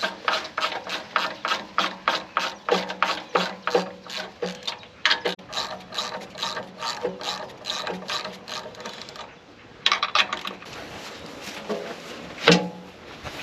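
Ratchet wrench clicking steadily, about three clicks a second, as nuts are undone, with a short pause and another quick run, then a single louder knock near the end.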